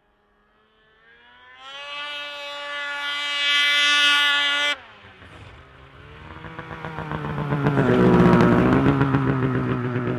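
Snowmobile engine revving up and running at speed, cutting off abruptly about five seconds in, then building again and running steadily high.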